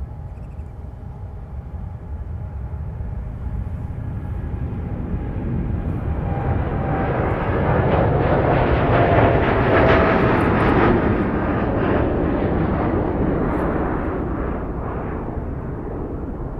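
Boeing 787-9 jet engines at takeoff power as the airliner lifts off and climbs out. The roar builds to its loudest about nine seconds in, with a faint whine, as the plane climbs past, then fades as it climbs away.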